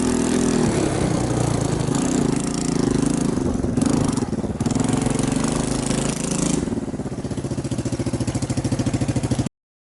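Small motorcycle engine running, its pitch rising and falling with the throttle and settling into a steady pulsing in the last few seconds; the sound cuts off abruptly near the end.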